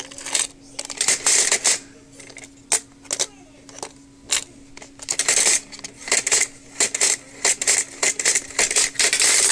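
Small hard plastic toy pieces clicking and clattering in irregular bursts as they are handled, over a faint steady hum.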